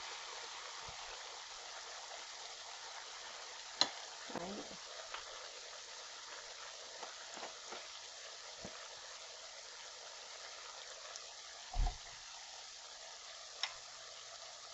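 Spice blend frying in oil in a saucepan, a steady sizzle. A few light clicks and one dull knock late on.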